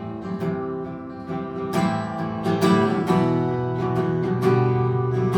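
Acoustic guitar strummed in an instrumental break of a live folk punk song, getting louder about two seconds in.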